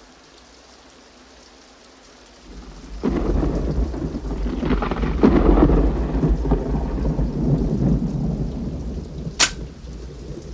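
Rain falling steadily, then a long rolling rumble of thunder that builds from about two and a half seconds in and slowly fades. Near the end comes a single sharp click: the hammer of a double-barrelled shotgun falling on a dud shell in a misfire.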